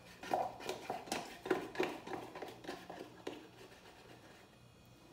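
Faint, scattered taps and scrapes of a spoon and a carton being handled at a kitchen counter. They die away after about three seconds, leaving quiet room tone.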